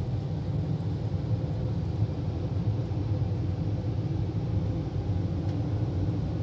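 Automatic car wash's drying blowers running, heard from inside the car: a steady low rumble of rushing air.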